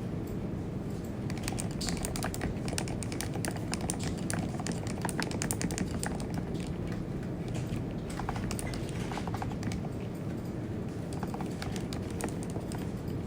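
Continuous typing on a computer keyboard: a quick, uneven run of soft key clicks, over a steady low hum.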